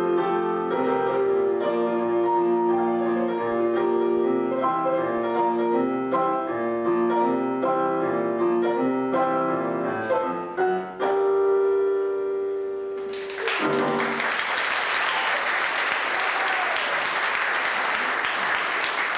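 Piano music played live on a keyboard, ending on a held chord about thirteen seconds in. Audience applause follows and continues to the end.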